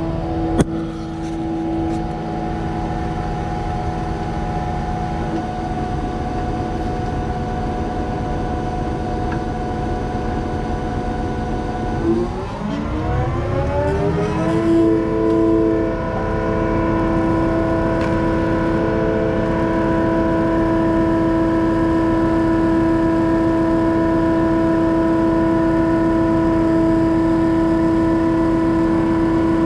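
Concrete boom pump truck's diesel engine running steadily, then throttled up over about two seconds near the middle to a higher, steady working speed as pumping begins. A single sharp knock just after the start.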